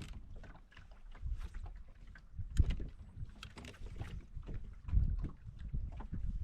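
Strong wind gusting against the microphone in low, uneven rumbles, with short irregular splashes of water slapping against a boat's hull.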